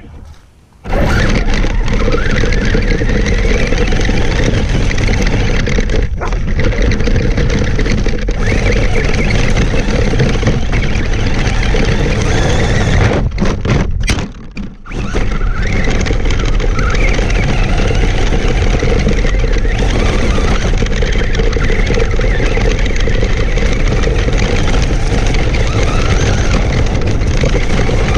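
Traxxas Stampede RC monster truck driving fast over loose gravel, heard from on board: the drivetrain runs with the tyres crunching and spraying stones. It goes briefly quiet about half a second in, and again in a few short drops about halfway through as the truck is thrown about.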